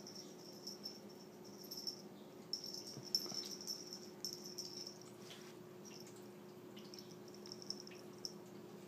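Small metal tag on a kitten's collar jingling in short patches as the kitten runs about, with a pause of a couple of seconds near the middle. A faint steady hum lies underneath.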